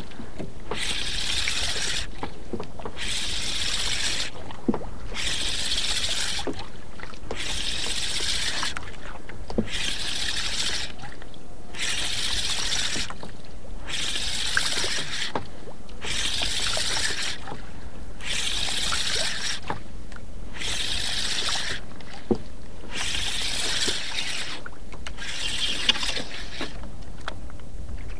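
Spinning reel being cranked in spells to wind in a hooked fish: a whirring hiss lasting about a second, repeating roughly every two seconds, with a few light clicks between the spells.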